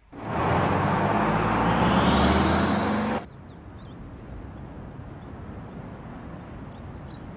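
Minibus engine revving as the bus pulls away, its pitch rising, cut off abruptly about three seconds in. A faint steady outdoor background with a few faint high chirps follows.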